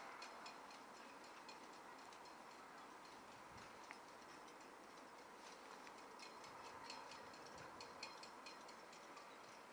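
Near silence: a faint steady hiss with scattered faint ticks.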